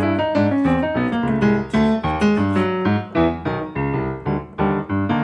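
Piano played solo: a quick, continuous stream of notes in the middle register over lower bass notes.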